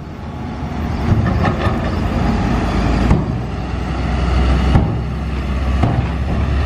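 UD Quester dump truck's diesel engine running as the tipper bed comes down and the truck pulls forward, its low rumble growing stronger about halfway through. Two sharp knocks come partway through, about two seconds apart.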